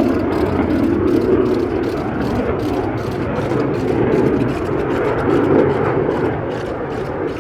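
Lockheed Martin F-35A Lightning II jet in flight, its Pratt & Whitney F135 afterburning turbofan making a loud, deep, continuous jet noise that eases slightly near the end.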